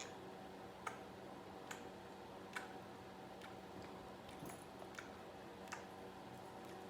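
Faint, sharp clicks at a fairly even pace, a little under one a second, over a low steady hum.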